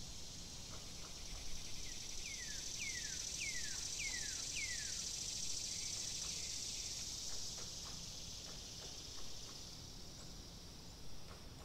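Outdoor nature ambience: a steady high insect shrilling, with a bird giving a run of five short whistles that fall in pitch, one after another, a couple of seconds in.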